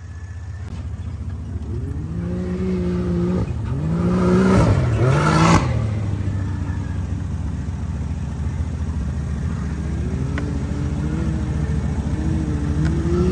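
Side-by-side UTV engine revving up and down in repeated surges as it slides through loose sand, with a steadier lower note in between. A loud rushing hiss about four to five seconds in is the loudest moment.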